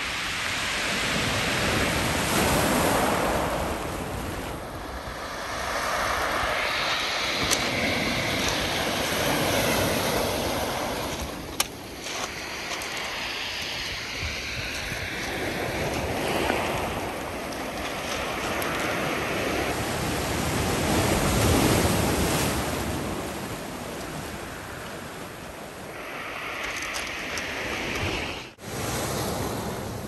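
Black Sea surf breaking and washing up a pebble beach, the rush swelling and ebbing with each wave every few seconds.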